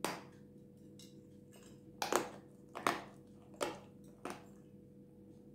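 A block of dry, powdery Jasmin edible clay bitten off, then crunched in a few sharp chews about a second apart, over a faint steady hum.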